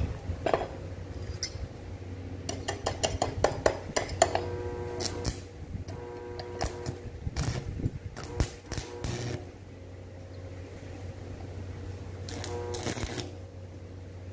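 Stick (arc) welding: three bursts of crackling and sizzling as the electrode tack-welds a rod brace onto a stainless steel grill basket. A steady low hum runs underneath.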